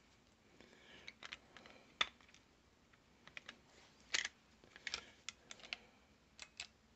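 Faint, irregular clicks and taps of a Taurus TX22 pistol's slide knocking against its frame and being lifted off and set back on, in failed attempts to seat the slide, which is not yet lined up in the right spot.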